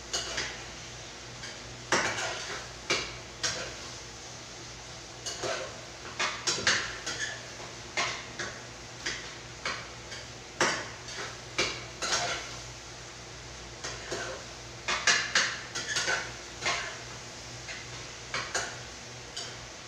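Metal utensil stirring and scraping in a frying pan, clinking against the pan in irregular strokes, sometimes in quick clusters. A faint steady low hum runs underneath.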